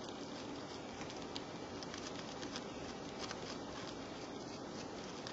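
Flux sizzling and crackling faintly under a soldering iron set to 450 °C: a steady soft hiss with scattered small crackles.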